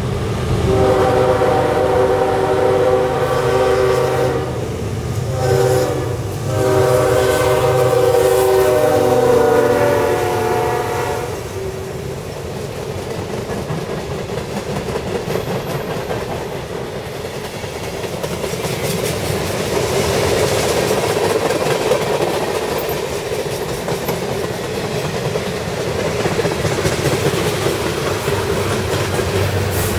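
A GE freight diesel locomotive sounds its Nathan K5LA five-chime horn for a grade crossing in several blasts. The last, long blast ends about eleven seconds in. After it, the freight cars roll past with a steady rumble and clickety-clack from wheels on the rails.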